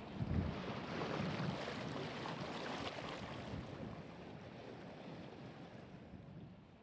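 Steady rushing noise of wind and water that fades out gradually.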